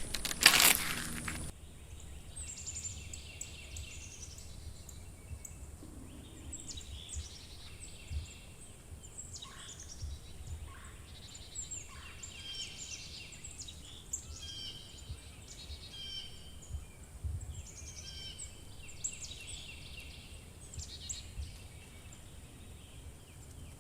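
Small birds chirping and twittering in short, repeated phrases in the background, with a brief rustling noise in the first second or so.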